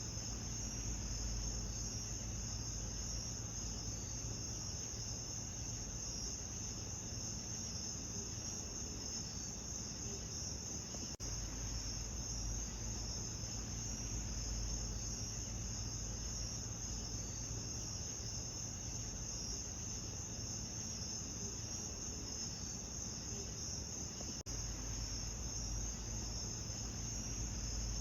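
A steady chorus of crickets, a continuous high chirring over a low rumble. It dips out briefly twice.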